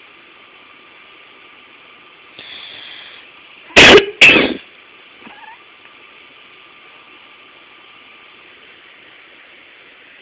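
A person coughs twice, loud and harsh, about four seconds in. A second later a cat answers with a short, faint mew. A steady hiss runs underneath.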